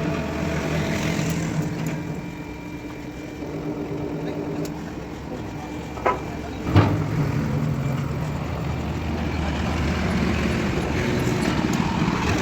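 An engine running steadily, with two sharp knocks about six and seven seconds in, after which the engine hum grows louder.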